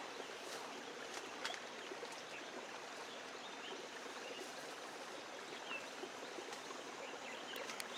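Steady rush of running water, like a stream, with a few faint short chirps and clicks over it.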